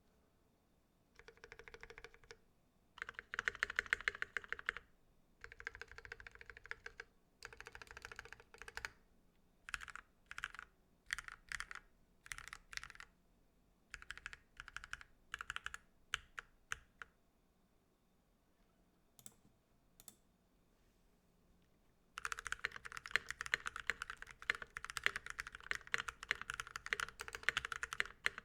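Typing on a KBD67 MKII 65% mechanical keyboard with lubed milky Gateron Yellow linear switches, a brass plate and ePBT keycaps. It comes in runs of rapid keystrokes, then shorter groups of presses, then a pause of a few seconds with only a couple of clicks. Steady fast typing starts again about three-quarters of the way in.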